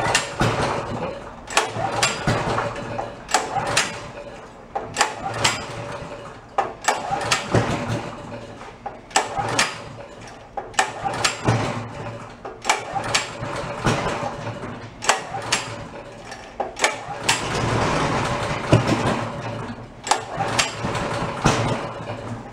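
Honda GX pressure-washer engine being pull-started over and over, one hard pull on the recoil cord every second or two, turning over without catching. The owner suspects it has no spark at all.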